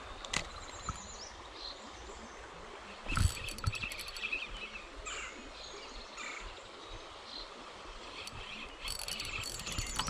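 Quiet outdoor ambience: a steady hiss with faint bird chirps. It is broken by a few single clicks, a burst of rapid clicking about three seconds in, and another burst of rapid clicking near the end.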